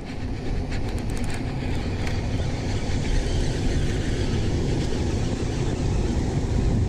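Wind buffeting the microphone, a steady low rumble, with a few faint clicks about a second in.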